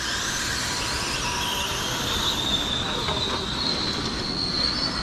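A pack of RC race cars running laps on a banked track, their motors and drivetrains making a high whine that rises in pitch as they speed up, over a steady hiss of tyres and wind.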